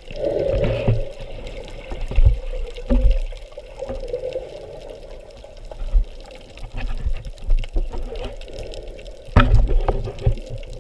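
Water sloshing and swirling, with several dull low thumps, the loudest about nine and a half seconds in.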